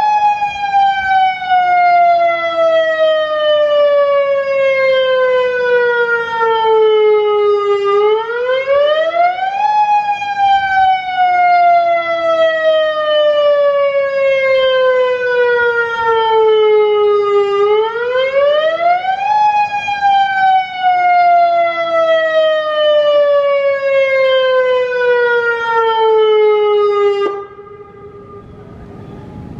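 Federal Signal Modulator 1004 outdoor warning siren sounding its attack test signal. The pitch rises quickly over about two seconds, then falls slowly for about eight, three times over, before the siren cuts off suddenly near the end.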